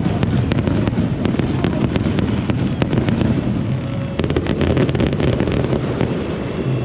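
Aerial fireworks going off in a dense, continuous string of sharp bangs and crackles over a low rumble, with a thicker flurry of cracks about four seconds in.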